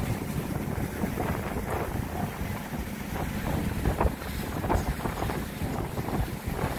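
Wind buffeting the microphone aboard a moving boat, with water rushing past and the boat's motor running underneath.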